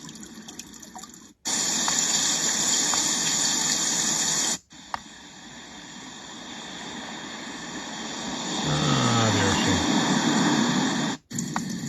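A sound machine's small speaker playing its built-in nature sounds, switched from one track to the next with a brief cut-out between each. A loud, steady, hissing rush of water-like noise lasts about three seconds. It gives way to an ocean-surf track that swells up over several seconds before cutting off.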